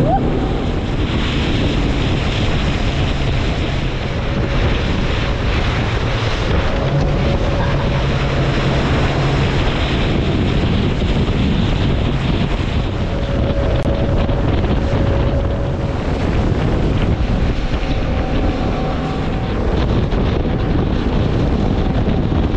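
Fishing boat running at speed on open water: a steady engine drone under heavy wind buffeting the microphone and the rush of the wake.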